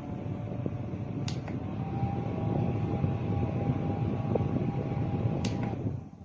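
DR.PREPARE double tower fan running, a steady rush of air with a faint motor whine, broken by two sharp clicks. The sound falls away sharply near the end.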